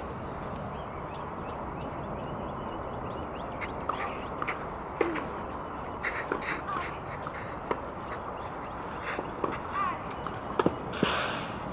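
Tennis rally on a clay court: a string of sharp knocks from rackets striking the ball, starting about four seconds in, mixed with footsteps. A short scraping slide of a shoe on the clay near the end. Steady outdoor background with bird calls.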